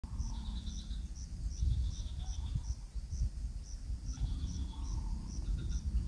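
A short, high animal chirp repeating evenly about twice a second, over a low rumble.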